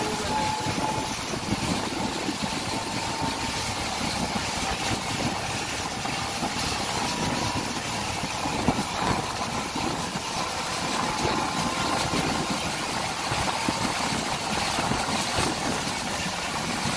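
Steady engine and road noise heard from inside a moving vehicle on a wet highway, with tyre hiss and a faint wavering whine.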